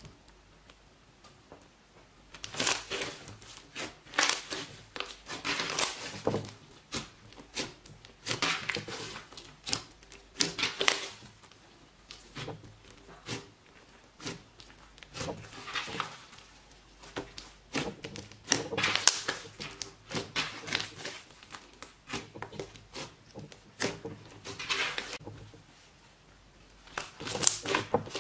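Hands squeezing, pressing and folding a large lump of pink slime: repeated sticky crackling bursts, starting about two seconds in, with short pauses between squeezes.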